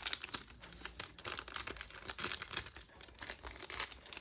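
Trading-card packaging crinkling and rustling in the hands as it is unwrapped, a dense run of small crackles.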